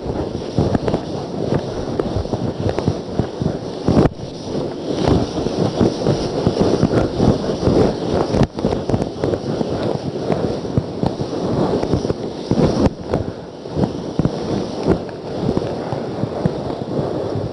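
Steady, dense crackling noise, broken by two very brief dropouts about four and eight and a half seconds in.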